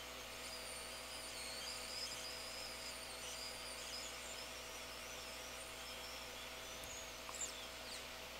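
Faint steady electrical hum from bench equipment during soldering, with a thin wavering high-pitched whine over it and a small click near the end.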